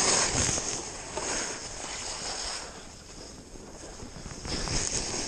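Skis sliding and scraping over snow on a downhill run, mixed with wind rushing over the body-worn camera's microphone. The noise is loudest at the start, eases off in the middle and picks up again near the end, as the skier's speed changes.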